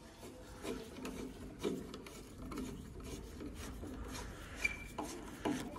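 Screwdriver turning and tightening a screw on a tractor lamp's metal mounting bracket: quiet rasping, scraping strokes of metal on metal, repeated about a second apart.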